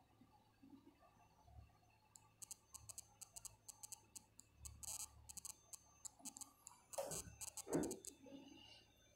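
Faint rapid ticking of steel tweezer tips against a small phone flex-cable connector, then two soft knocks near the end as the connector is set down on the rubber mat.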